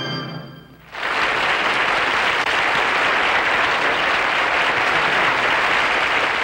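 Studio audience applauding steadily, the applause swelling in about a second in as the last notes of a short music cue die away.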